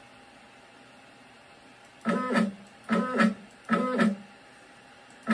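X-Carve CNC's Z-axis stepper motor jogging in short moves to set its zero against a gauge. Each move is a brief pitched whine of about half a second. Three come about a second apart, starting about two seconds in, and a fourth begins at the very end.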